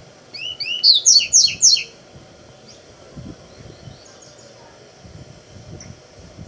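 Double-collared seedeater (coleiro) singing: a quick loud phrase of about eight rising chirped notes in the first two seconds, then a few faint scattered notes, with soft low bumps underneath.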